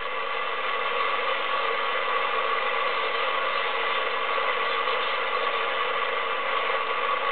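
Lincoln 11 m transceiver's speaker hissing with steady band static between transmissions, with a few faint steady tones running through it. The static swells slightly in the first second, then holds even.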